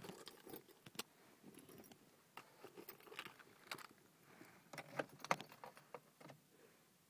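Car keys jangling on their ring, with several sharp clicks, the loudest a little after five seconds; no engine cranking is heard.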